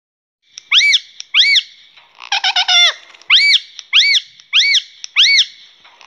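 Rose-ringed parakeet screeching: a string of loud calls, each rising then falling in pitch, about one every two-thirds of a second, with a quick run of five shorter notes about two seconds in.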